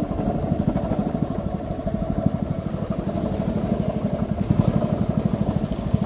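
Small boat's engine running steadily with a rapid, even putter.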